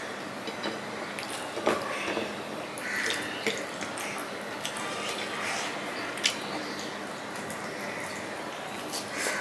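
Wet, sticky clicking and squishing of fingers mashing rice with fish curry on a plate, with mouth sounds of chewing, as a run of short irregular clicks over a faint steady hiss.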